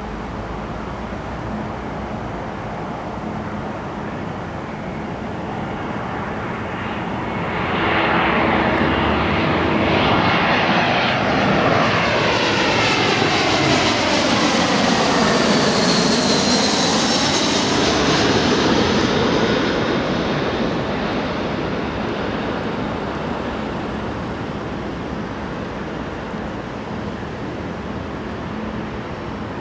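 Airbus A321-231 jet airliner on final approach passing low overhead, its two IAE V2500 turbofans running on approach power with landing gear down. The jet noise builds over several seconds and is loudest about halfway through, with a high fan whine and a sweeping swish as the plane goes over. It then slowly fades as the airliner moves away.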